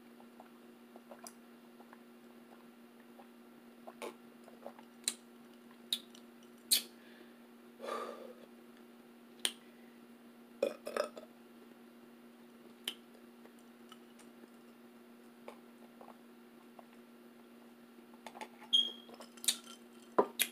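Close-miked eating: scattered wet mouth smacks and clicks of chewing, in small clusters with pauses between, over a faint steady hum.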